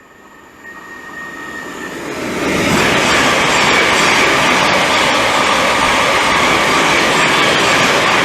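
A 12-car Thameslink Class 700 Desiro City electric multiple unit passing through the station at speed without stopping. It builds over the first two to three seconds into a loud, steady rush of wheels on rail and air.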